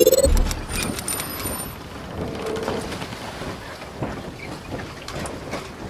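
Logo-intro sound effects: a rising whoosh peaks and ends in a low boom, then a steady noisy hiss with scattered faint crackles and a brief high shimmer about a second in.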